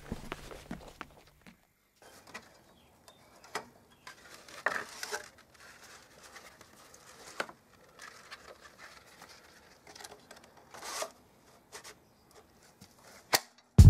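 Scattered light clicks, taps and rubs of hands handling a workpiece and a belt-and-disc sander that is not running.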